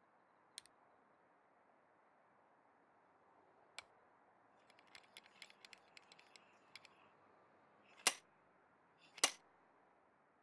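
Light plastic-and-metal clicks, then a quick run of small clicks as a Thule torque tool turns the foot's bolt. Near the end come two loud, sharp clicks about a second apart: the torque limiter clicking over, the sign that the bolt has reached the correct tightening torque.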